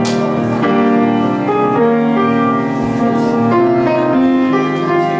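Piano played live: a slow tune of held notes and chords, the notes changing every half second to a second.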